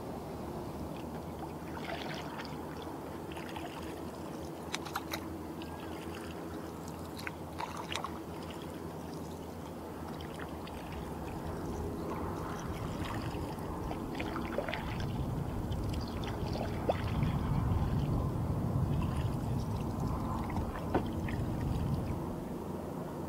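Water trickling and splashing around a kayak, with small drips and ticks scattered through. A low rumble swells for several seconds in the second half.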